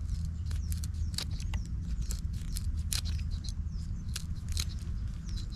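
Lime wedge being squeezed and worked with a knife tip over a bowl of dipping sauce: irregular small crackles and clicks, several a second, over a steady low rumble.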